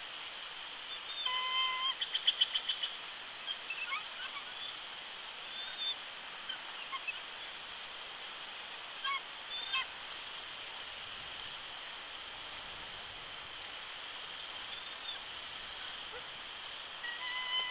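Bald eagles calling at the nest: a high call with a rapid chittering run of notes about a second in, scattered short peeps after it, and another call near the end, over a steady background hiss.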